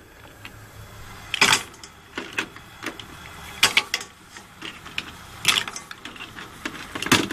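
Green mussel shells clacking against each other and the metal pot as they are put into the pot of water by hand, in a string of irregular sharp knocks, roughly one or two a second.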